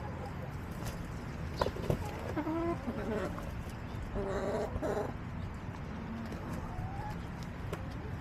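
Backyard hens clucking in short, low calls, with a longer call about four seconds in, over a steady low background rumble. A couple of sharp clicks come about two seconds in.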